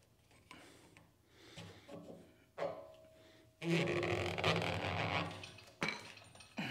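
Rubber hand grip squeaking and squelching as it is twisted and forced onto the cement mixer's steel handle tube, with a few light knocks. The loudest part is about a second and a half of rubbing a little past halfway.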